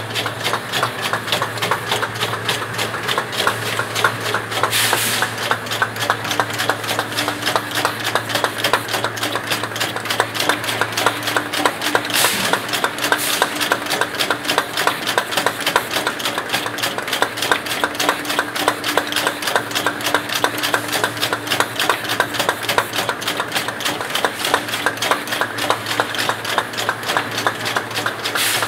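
Rotary plastic bottle-cap machine running: a fast, steady clatter of rapid clicks over a low hum, with a few brief hisses along the way.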